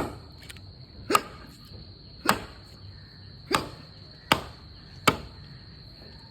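Six sharp blows of a heavy tool striking wood, about one a second, during tree felling. A steady high insect drone runs underneath.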